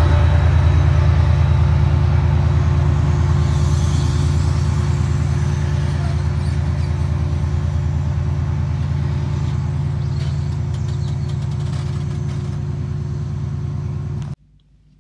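Class 68 diesel-electric locomotive's Caterpillar V16 engine running steadily as it hauls a train of coaches past, slowly fading as the locomotive draws away. The sound cuts off suddenly near the end.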